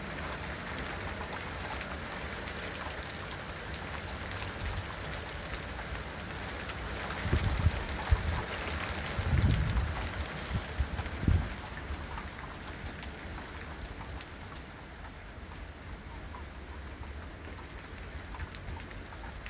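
Hail pelting down, a dense patter of many small hard impacts that thins out and quietens over the second half. A few gusts of wind buffet the microphone in the middle.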